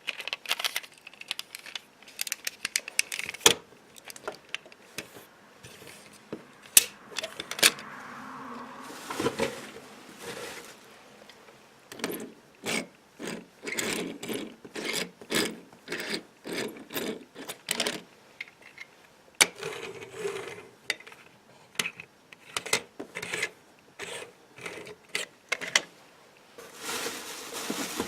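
Small die-cast toy cars and their packaging being handled: irregular clicks, knocks and short rattles, with a couple of stretches of rustling.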